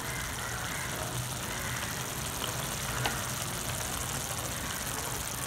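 Steady whirring hum and rush of a kitchen fan, with a couple of faint ticks about three seconds in.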